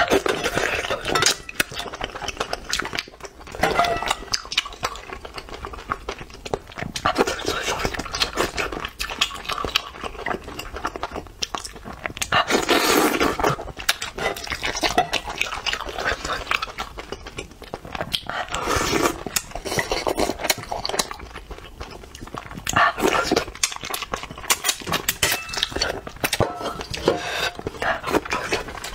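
Close-miked eating of spicy bullfrog: chewing and biting on the pieces, with chopsticks clicking against the bowl. There are louder mouth noises about 13 and 19 seconds in.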